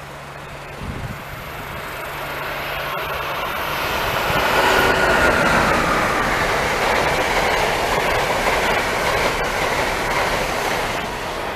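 Amtrak Acela Express electric trainset passing at speed, with a rushing noise of wheels on rail. The sound swells over the first four seconds or so, holds steady, then eases a little near the end as the last car goes by.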